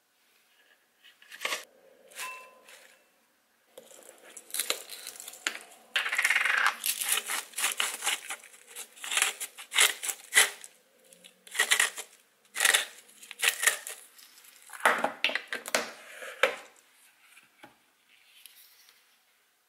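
Salt being ground from a hand-held salt mill over a glass bowl of salad greens. After a few light clicks near the start comes a long run of short bursts, one or two a second, which stops about three seconds before the end.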